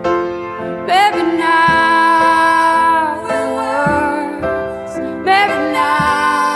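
Song recording: a woman singing long held notes over piano, with a sung phrase starting about a second in and another near the end.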